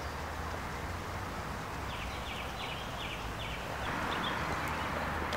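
Outdoor park ambience, a steady wash of background noise, with a small bird giving a quick run of about six short high chirps in the middle. The background noise steps up a little near the end.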